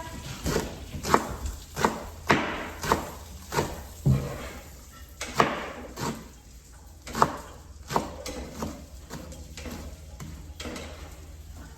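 Knife chopping on a cutting board: a series of sharp knocks, about two a second at first, then sparser and softer toward the end.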